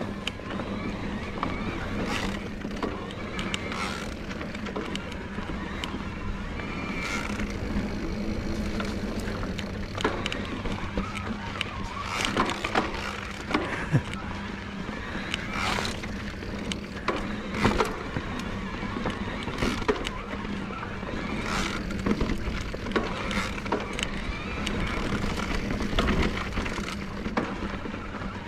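Electric mountain bike riding up a dirt trail: Bosch CX mid-drive motor giving a steady low hum under power, with tyres rolling over dirt and rock and sharp rattles from the bike every couple of seconds.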